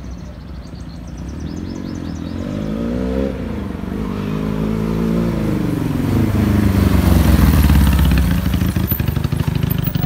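Twin-cylinder engine of a replica Kawasaki Ninja 300 sport bike riding toward the listener, its revs rising and falling twice. It gets louder as it comes closer and is loudest about seven to eight seconds in.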